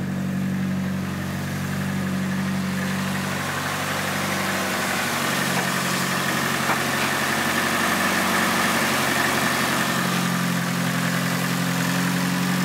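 Nissan S13's turbocharged SR20 engine idling steadily, its idle note shifting slightly a couple of times as it warms up after a hard cold start. The owners suspect old spark plugs or a bad sensor are behind the cold-start trouble.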